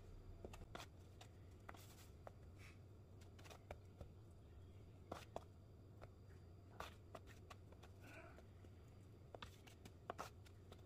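Faint, scattered soft taps and rustles of raw fish fillets being dredged in flour by hand and laid on a metal sheet pan.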